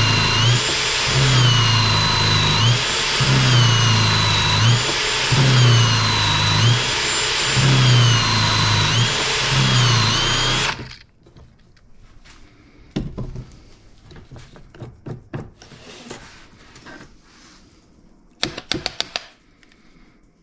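Cordless drill boring a 35 mm hinge cup hole through a hinge drilling jig into a cabinet door, its motor pitch dipping under load and recovering about once a second as the bit is worked in and out. The drill stops suddenly about eleven seconds in, followed by a few light clicks and knocks as the jig is handled.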